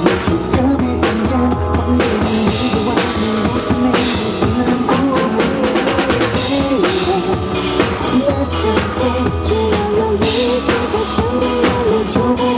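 Drum kit played live, with bass drum, snare and cymbal strikes keeping a steady beat. It is played along to a recorded pop song, with its bass line and a sung melody.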